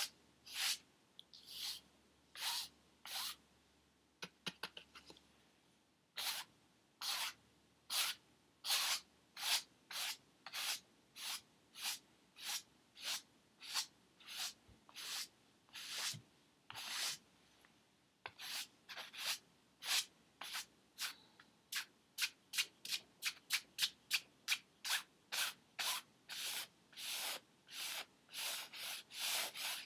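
Paintbrush scrubbing across a stretched canvas in a long series of short strokes, about two a second, quickening to about three a second past the halfway point.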